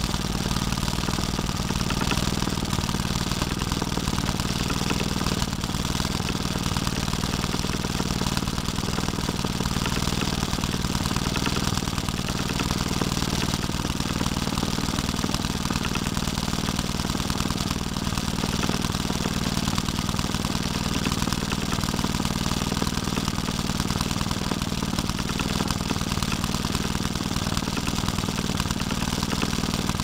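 1946 Maytag Model 72 twin-cylinder two-stroke engine running steadily with a fast, even firing beat. The owner says it is worn and crying out for new bushings and rings.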